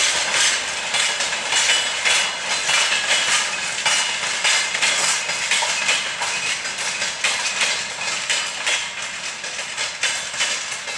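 Jet airliner's engines heard overhead, a continuous crackling rush that slowly fades as the plane flies away.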